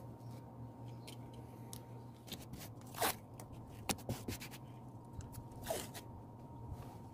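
Masking tape being handled: small scratches and clicks, with two short rasps of tape pulled off the roll, about three seconds in and again near six seconds, over a steady low hum.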